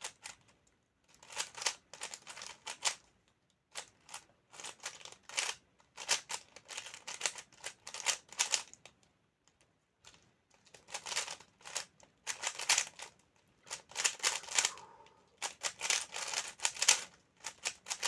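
GAN 12 magnetic 3x3 speedcube being turned fast during a solve: rapid runs of plastic clicks and clacks in bursts with short pauses between them, and one longer pause about ten seconds in.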